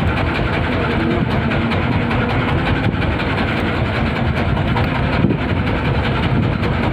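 Small fishing boat's engine running steadily, a constant low rumble with a wash of wind and sea noise over it.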